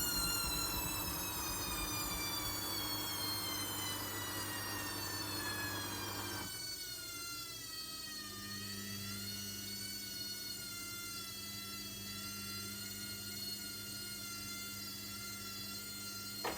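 Logik L712WM23 washing machine's motor whining as the drum spin slows, the pitch falling steadily; about six and a half seconds in the sound changes abruptly to a quieter whine that dips briefly and then holds steady.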